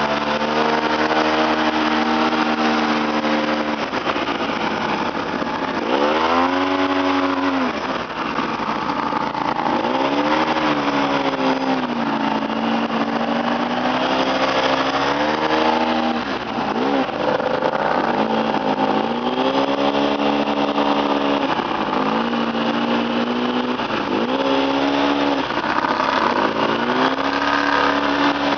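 ATV engine running under changing throttle, its pitch climbing and dropping again and again, a rise and fall every two to four seconds.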